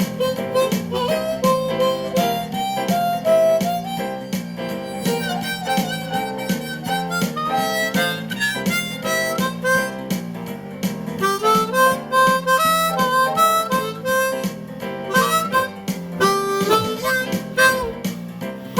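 Blues on harmonica, a melody of short stepping notes over a steady strummed guitar rhythm.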